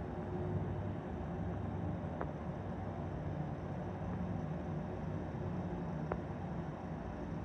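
Toshiba passenger-and-freight elevator running: a steady low hum, with a couple of faint clicks.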